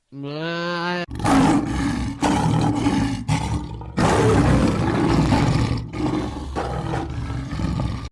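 Animal roars in a cartoon soundtrack: a short drawn-out moo-like call, then a run of loud, rough roars in several bursts.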